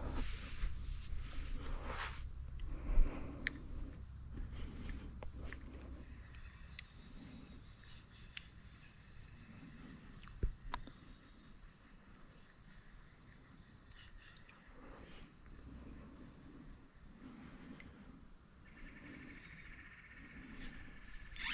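Steady high-pitched insect chirring with a faint regular pulse, plus a few short sharp clicks and knocks, the loudest about 3 seconds in and another near 10 seconds.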